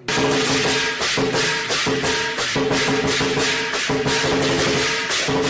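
Background music with a steady beat, bright shaker-like percussion over sustained notes.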